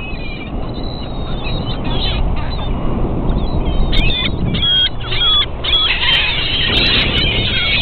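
A flock of gulls calling: a few separate calls at first, then many calling at once from about six seconds in, over a steady low rumble.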